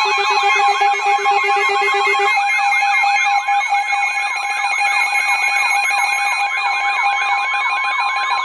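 Weather radio alert alarm: a fast warbling, siren-like tone repeating several times a second over steady alert tones, with a lower tone dropping out about two seconds in.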